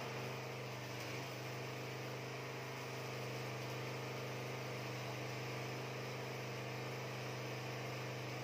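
Steady low machine hum with a stack of overtones, starting abruptly at the outset and holding an even pitch throughout.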